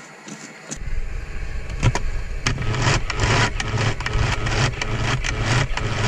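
Personal bottle blender switching on about a second in and running, its motor humming while fruit pieces rattle and chop inside the bottle, growing louder after a couple of seconds. Its 300-watt motor is running off a 300-watt inverter, so it blends slowly.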